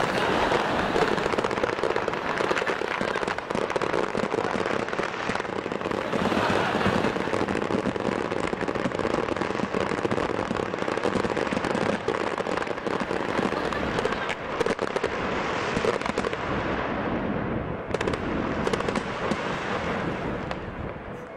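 A fireworks display going off all at once: a dense, unbroken barrage of bangs and crackling, the whole display fired together by a technical hitch. It thins out and dies away near the end.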